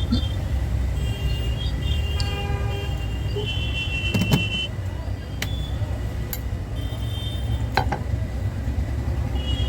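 Hot air rework gun blowing steadily while desoldering a phone's charging jack: a low steady hum, with short high-pitched tones coming and going and a few sharp clicks.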